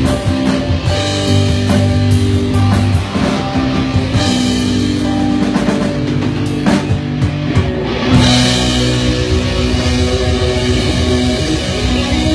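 Rock music with guitar and drum kit, played live. There is a loud hit about eight seconds in, after which the sound gets fuller and brighter.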